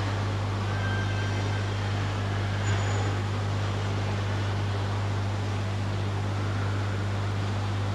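Steady low electrical hum and hiss from an old video recording, over the faint background noise of a large crowd seated in a hall. A brief click about three seconds in.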